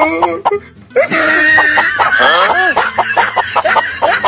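Hen clucking over background music.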